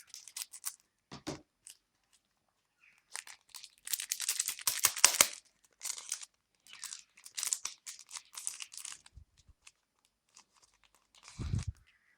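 Trading-card pack wrapper being torn open and crinkled, in scattered rustles, loudest about four to five seconds in, with a soft thump near the end.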